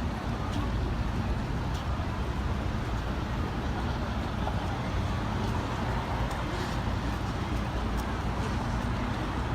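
Downtown street ambience: a steady rumble of road traffic, with scattered faint sharp ticks.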